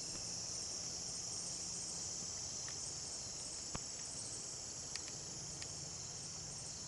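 Steady high-pitched insect chorus, a continuous shrill drone from crickets in the garden, with a few faint clicks.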